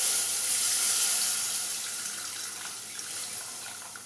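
Milk poured into a hot pan of butter and flour roux, sizzling loudly and then dying down over several seconds.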